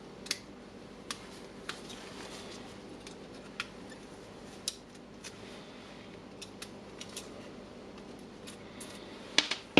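Irregular small clicks and taps of plastic and metal parts being handled as the carbon brushes are swapped in a Bosch GBH 2-26 hammer drill's brush holder, with a louder cluster of clicks near the end.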